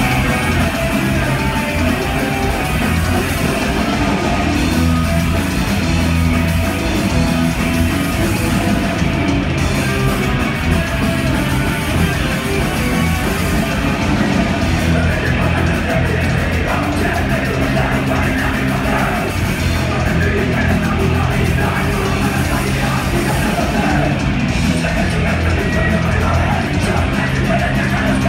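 Live punk rock band playing loud: distorted electric guitars, bass and drums with shouted vocals.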